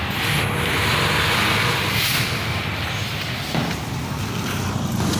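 A motor vehicle running steadily: a low rumble with hiss.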